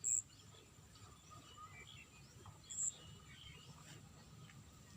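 Faint open-field ambience with scattered, brief high chirps of small birds. One sharp very high chirp comes at the start and another about three seconds in.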